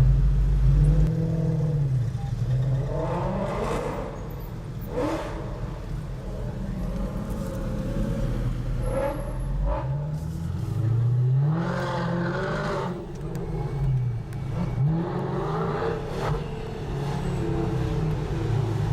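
Overfinch Range Rover SVR's supercharged V8 running through its open valved exhaust, rising and falling in pitch several times as it revs and accelerates, with a few sharp cracks.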